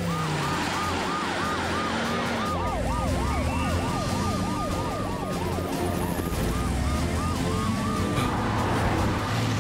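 Cartoon emergency-vehicle sirens wailing in quick rising-and-falling cycles. A second, lower-pitched siren joins for a few seconds in the middle, overlapping the first.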